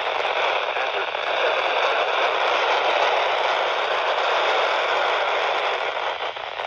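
Steady static hiss from a NOAA Weather Radio receiver, noise only with no broadcast voice coming through.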